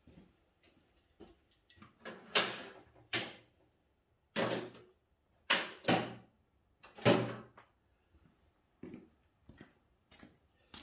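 A series of knocks and clunks from tools and parts being handled on a workbench: about six louder ones between roughly two and seven seconds in, with fainter clicks between them.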